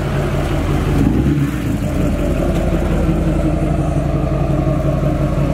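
LMM Duramax 6.6-litre V8 turbo-diesel of a lifted 2008 GMC pickup with a 5-inch straight-pipe exhaust, running steadily at low speed as the truck pulls in.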